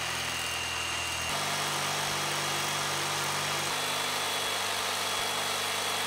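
Corded jigsaw cutting through a thick nylon sheet, its motor running with a steady hum that shifts in pitch about a second in and again midway.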